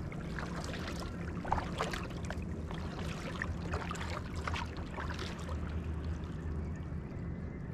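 Kayak paddle strokes: the blades dipping into calm water, with splashes and drips running off them, most of them in the first five seconds. A low steady rumble runs underneath.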